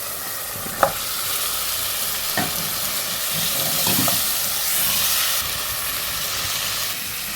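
Food sizzling in hot oil in a cooking pot, a steady hiss, with a utensil knocking against the pot about three times in the first half.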